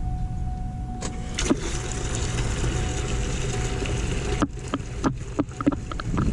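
Electric fuel lift pump running with a steady low hum and a thin whine, pushing diesel out of the open feed line into a bucket. From about a second in there is a hissing rush of fuel, which drops away a little after four seconds, followed by a few short clicks and knocks.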